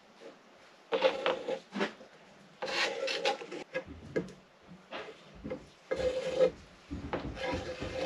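Wooden laminating strips scraping and rubbing against each other and the bench as they are handled and coated with epoxy, in several short scraping strokes of under a second each.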